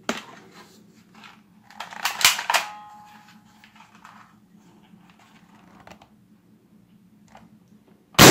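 A spring-powered toy AK-47 clicks and clatters, with a loud burst of plastic rattling about two seconds in. Near the end a balloon bursts with a single sharp bang, the loudest sound.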